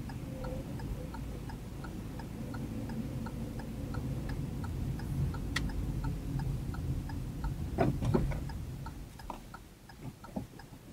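A car's turn-signal indicator ticking at an even rate over the low, steady engine and road noise inside the cabin. A couple of short, louder sounds come about eight seconds in.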